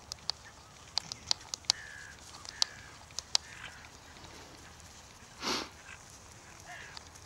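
A ridden horse working on grass: a scatter of short sharp clicks over the first few seconds, then one short, loud, breathy noise about five and a half seconds in, with faint bird calls.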